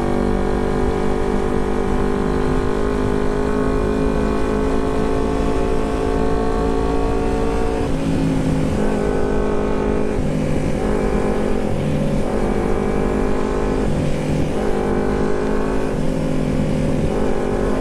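Carburetted Kawasaki Ninja 250 parallel-twin running through an aftermarket Termignoni megaphone exhaust while being ridden, a loud, throaty exhaust note. The note holds steady and drifts slightly lower for the first half, then rises and falls in short steps with the throttle from about halfway.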